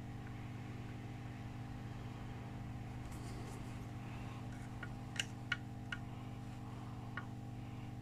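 Steady electrical hum from bench equipment, with four light clicks in the second half as metal soldering-tool tips touch the laptop circuit board.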